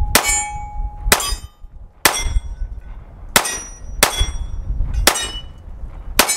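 Seven shots from a Springfield Armory Emissary 1911 in .45 ACP, loaded with Fiocchi 230-grain jacketed hollow points, fired at a steady pace of about one a second. A clear ringing tone hangs on for about a second after the first shot.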